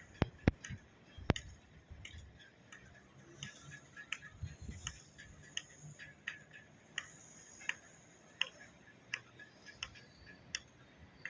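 Sharp clicks, a few louder knocks at first, then settling into an even ticking of about three clicks every two seconds over a faint background hiss.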